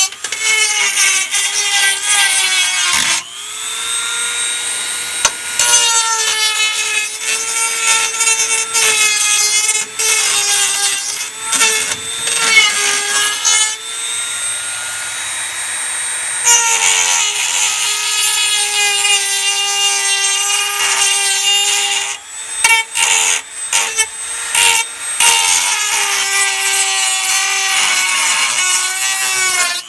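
Electric grinder running and grinding: a steady motor whine that sags and recovers as it is pressed into the work, with a rough grinding rasp on top. The tone drops out briefly about three seconds in and spins back up. Toward the end the grinder touches the work in short, repeated contacts.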